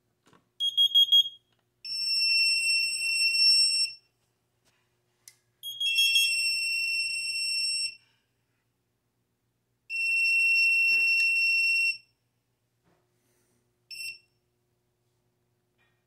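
Carbon monoxide detector test on a fire alarm system: a quick run of high beeps, then three long electronic alarm tones of about two seconds each with gaps of about two seconds, and a short final beep.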